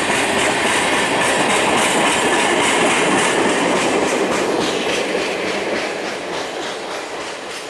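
Steel wheels of the last empty coal hoppers and the caboose of a long freight train rolling past and clattering over the rail joints with a regular clickety-clack. The sound fades from about five seconds in as the end of the train moves away.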